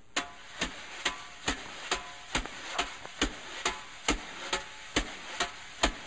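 Steady percussive clicks keeping time, a little over two a second, at the opening of a song recording.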